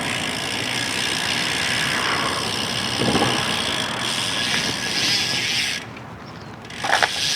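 Steady road noise that eases off about six seconds in, followed by a couple of sharp clicks near the end.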